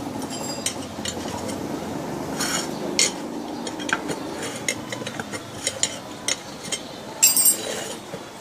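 Metal hand tools clinking and tapping during work on a scooter wheel and tyre: scattered light clicks, with a louder burst of clanks near the end, over a steady background hum.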